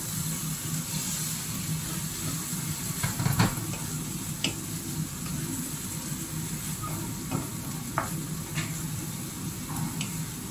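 Diced eggplant sizzling in a hot non-stick wok as water is added, while a wooden spatula stirs and scrapes through it. Several sharp taps of the spatula against the pan are heard, the loudest about a third of the way in.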